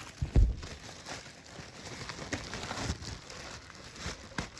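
Plastic packaging crinkling and rustling as vacuum cleaner accessories are unwrapped and handled, with a single dull thump about a third of a second in and small clicks of plastic parts.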